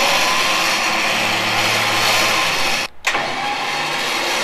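13,000 lb OpenRoad electric winch motor and gear train running without load on its first power-up test, a steady hum with a bright whine. It stops for a moment about three seconds in, then runs again at a slightly different pitch.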